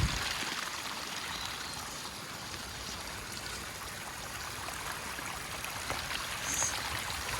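Rain-swollen runoff stream flowing steadily, an even rushing of water after heavy overnight rain. A brief low thump comes right at the start.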